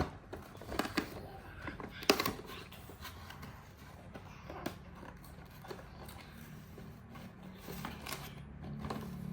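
Cardboard and plastic toy packaging being opened and handled: scattered sharp clicks, snips and crinkles, the loudest about two seconds in.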